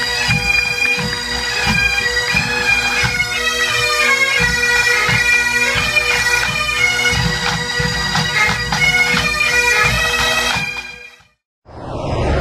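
Massed pipe bands playing together: many Scottish bagpipes with a steady drone under the chanter melody, and drum strikes keeping the beat. The music cuts off suddenly about 11 seconds in, and a short rush of noise follows near the end.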